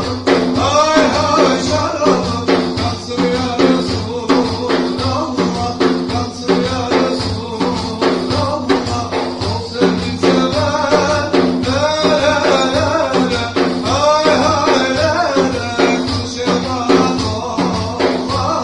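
A song: a singing voice over a steady, fast percussion beat.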